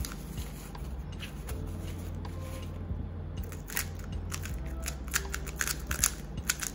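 A freshly lubed 3x3 speedcube being handled: a run of short, crisp plastic clicks and rustles, more of them in the second half, over a steady low hum.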